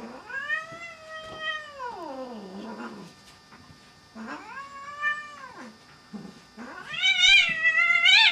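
A cat yowls three times in long, drawn-out calls that rise and fall in pitch. The last call is the loudest and wavers. The cat is yowling while a dachshund wrestles and mouths it in rough play.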